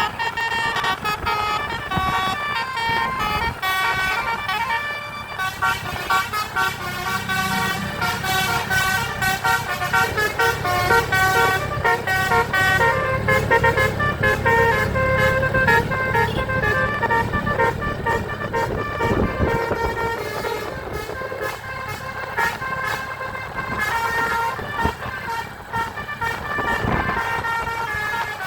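Basuri telolet multi-tone bus horn playing a tune of quick, changing notes, with the bus's engine running underneath and loudest through the middle.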